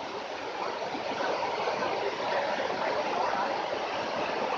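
Waterfall: water pouring and rushing steadily.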